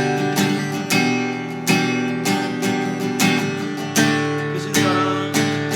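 Acoustic guitar strumming sustained chords in a steady rhythm, with a hard strum about every three-quarters of a second and lighter strums between.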